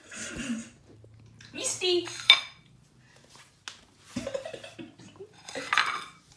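A ceramic dinner plate knocking on a tile floor in short bursts, with one sharp clink a little over two seconds in.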